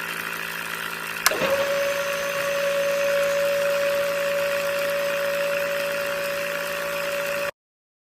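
Small electric motor switched on with a click about a second in, then running at a steady speed with a constant hum. The sound cuts off abruptly near the end.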